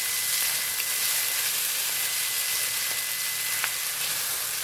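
Shrimp and chicken fried rice with soy sauce sizzling steadily in a hot pan, with one light click about three and a half seconds in.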